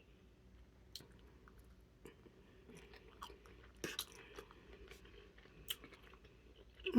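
Faint chewing and mouth sounds while eating a meal of oxtails: soft wet clicks and smacks, with a couple of slightly louder ones about four seconds in and near the end.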